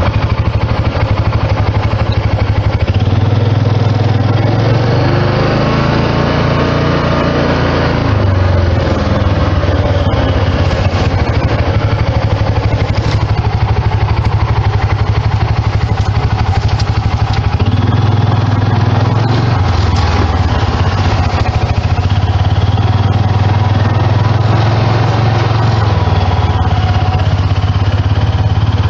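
Vehicle engine running steadily as it drives, its pitch shifting up and down a little several times with changes in speed or load.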